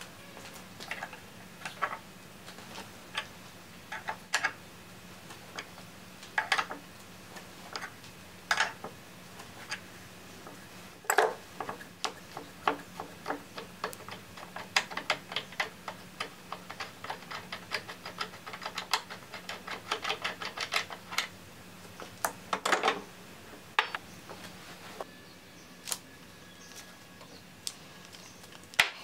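Irregular sharp metallic clicks and taps of a hand tool working parts held in a bench vise, thickening into a fast run of clicks in the middle. A faint steady hum runs underneath.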